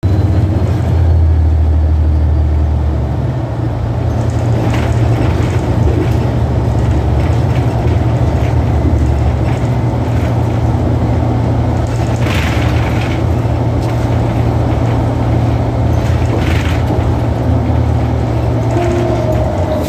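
Cabin noise inside a 2014 New Flyer XDE60 diesel-electric hybrid articulated bus: a steady, loud low drone from the engine and driveline, its pitch shifting slightly a few times, with a few brief rattles of the interior fittings.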